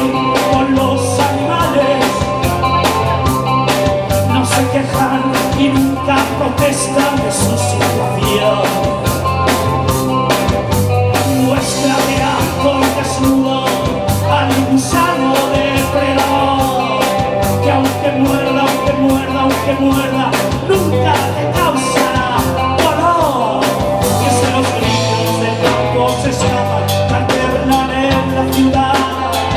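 A live rock band playing a song: a man singing lead over electric guitar, bass guitar and a drum kit keeping a steady beat.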